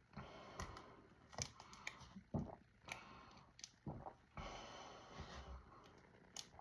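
Someone chugging soda from a 2-liter plastic bottle: quiet gulps and swallowing clicks, a few with a dull thump, with two spells of soft hissy breathing-like noise between them.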